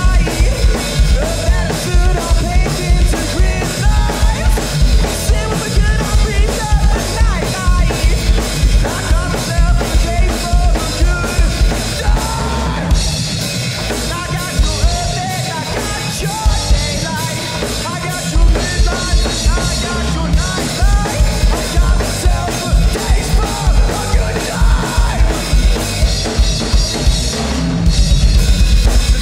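Live rock band playing loud, driving music on drum kit, electric guitar and bass, with heavy kick drum hits. Near the end the band gets louder, the kick drum pounding in a fast, steady beat.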